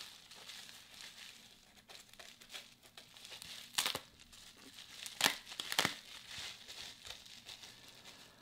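Plastic bubble wrap crinkling as it is unwrapped by hand, with a few sharper, louder crackles near the middle.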